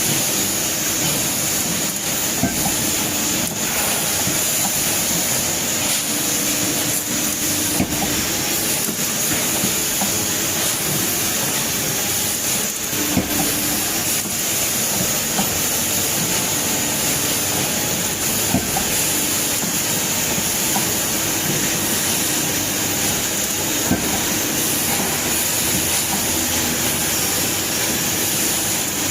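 2D CNC wire bending machine running as it feeds and bends steel wire: a steady mechanical hiss with a faint high whine, broken now and then by short clicks and knocks.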